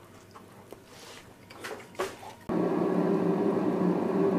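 A few faint clicks, then from about halfway a Cosori air fryer running with a steady fan hum while it cooks at 200 °C.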